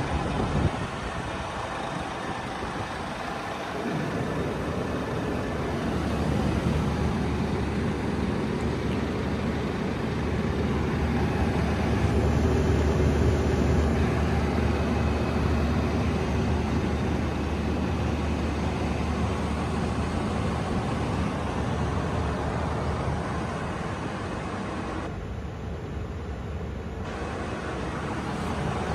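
Scania R440 truck's diesel engine idling steadily, heard from inside the cab.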